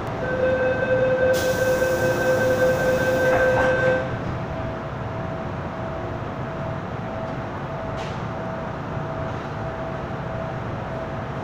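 Inside an MTR Island Line M-Train car: a steady buzzer-like tone sounds for about four seconds, with a hiss joining it for its second half, then stops sharply. After that comes the car's steady hum with a faint whine.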